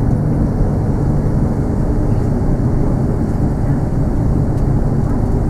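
Steady low rumble of an Airbus A330-200 airliner's engines, even and unchanging in level.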